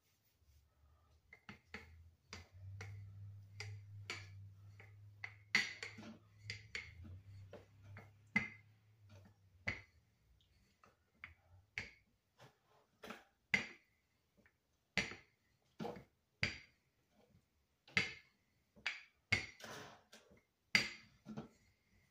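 Wooden rolling pin rolling out thick dough on a floured counter: a string of light clicks and knocks, about one a second, as it goes back and forth. A low hum runs under the first ten seconds or so.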